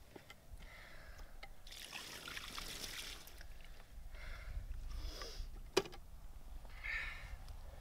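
Water poured from a bucket over a landed carp to keep it wet, splashing in a long pour about two seconds in and shorter splashes after. A sharp knock just before six seconds.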